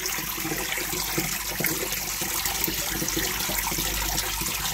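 Steady bubbling and splashing of water in an aerated koi tank, a continuous wash with small crackles of breaking bubbles.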